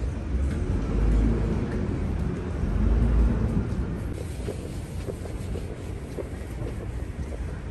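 City street ambience: road traffic running by, with two louder low rumbles about one and three seconds in.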